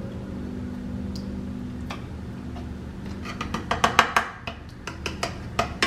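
A ladle spreading sauce in a cast-iron skillet: quick knocks and taps on the pan. They come in a cluster about three and a half seconds in and again near the end, over a low steady hum.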